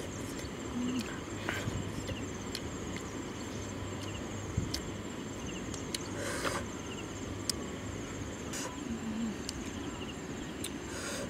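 Insects chirping steadily in a high, finely pulsing drone, with a few sharp clicks and taps as cooked snails are picked from the wok.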